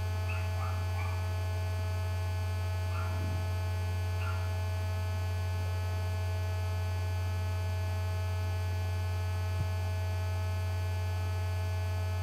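Steady electrical mains hum in the recording, with faint steady high tones above it. A single small click comes about three-quarters of the way through.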